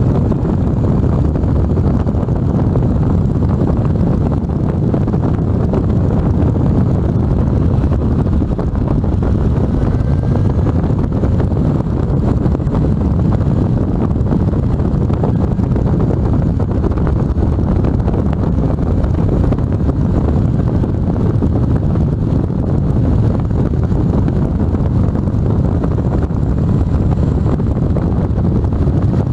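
Steady rush of wind over the microphone while riding a Honda Gold Wing motorcycle at road speed, with the bike's engine running underneath.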